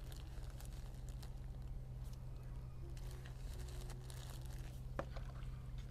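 Faint crinkling and scattered light clicks over a steady low hum, with one sharper click about five seconds in.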